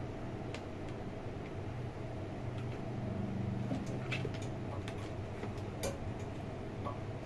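A kitten pawing and scrabbling in a cardboard box: a scatter of light clicks and scrapes, thickest a few seconds in, over a steady low hum.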